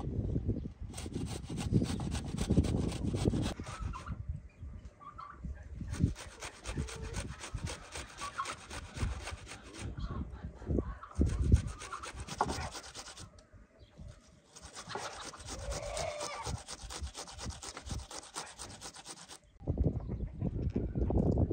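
A raw potato being grated on a metal box grater: rapid rasping strokes in four runs, with short pauses between them. Near the end the grating stops and duller low handling sounds follow.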